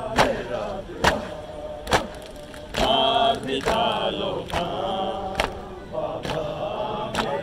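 A crowd of men chanting a Muharram lament (noha) together while beating their chests (matam) in unison, with a loud slap on each beat a little over once a second.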